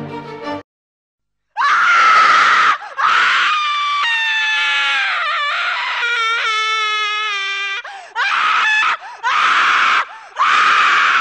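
A person screaming in high-pitched screams: a short one, then a long one that wavers and drops in pitch, then three shorter ones, the last the longest.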